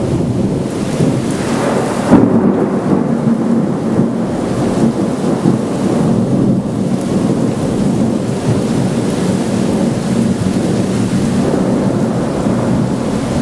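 Heavy thunderstorm: rain pouring down steadily with thunder rumbling, and a sharp, loud thunderclap about two seconds in.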